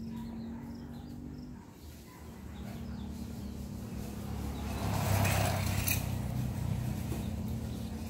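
Outdoor ambience with a steady low motor hum; a rushing noise builds about four seconds in, is loudest around five seconds and stops sharply near six seconds.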